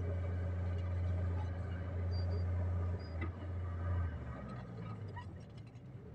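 Diesel dump truck engine running with a steady low hum as it works the hoist to tip the loaded bed; the hum drops away about four seconds in, leaving a quieter stretch with a few faint clicks.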